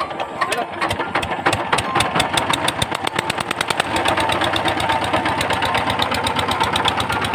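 VST Shakti 130 DI power tiller's single-cylinder diesel engine starting: a few slow, uneven firing strokes that quicken within a few seconds into a steady, rapid run.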